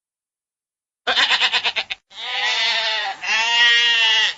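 Sheep bleating three times. About a second in comes a short quavering bleat, followed by two long, drawn-out bleats.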